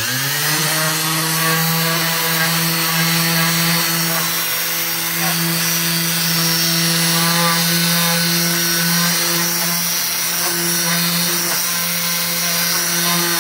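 Electric orbital hand sander switched on, spinning up to speed and then running steadily with a hum and a hiss on a wooden board.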